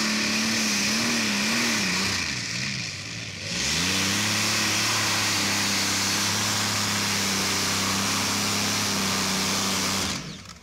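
Modified-class pulling tractor's multiple supercharged engines revving unevenly, dipping briefly a couple of seconds in, then held at full throttle at a steady pitch as it hauls the weight sled. The sound cuts off suddenly near the end.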